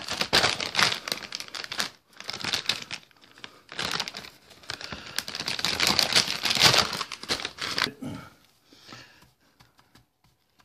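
Plastic tobacco bag crinkling as it is opened and handled. It comes in several bursts of rustling for about eight seconds, then fades to faint rustles.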